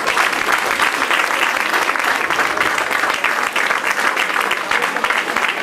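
Audience applauding: many hands clapping in a dense, steady patter at the close of a recited monologue.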